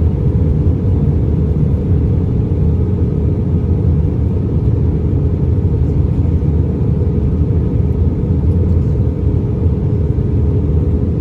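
Steady low rumble of cabin noise inside an Airbus A320-200 airliner during its descent to land: engine and airflow noise, with a faint steady hum on top.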